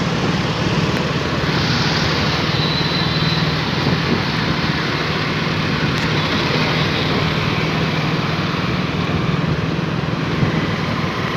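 Steady road noise of riding along a busy highway: an even rush of wind and traffic with a low, steady engine hum underneath.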